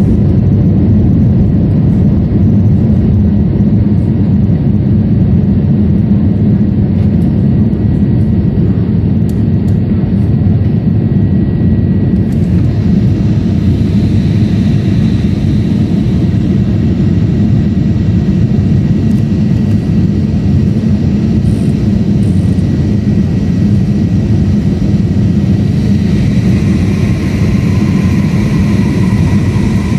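Airliner cabin noise during the climb after takeoff: the steady, loud roar of the jet engines and rushing air, with a faint steady whine above it. The sound turns brighter and more whining near the end.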